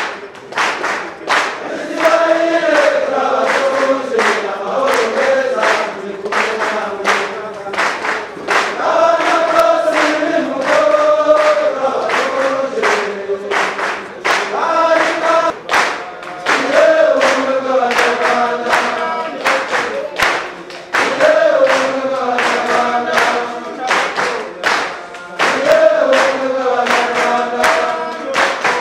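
A choir of voices singing a song together, with steady rhythmic hand-clapping on the beat.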